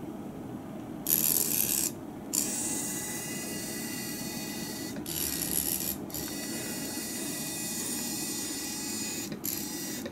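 Small drive motors of a Legomo mini robot whirring as it is steered from a phone app, starting and stopping in several runs, with louder spells about a second in, around five seconds in and near the end.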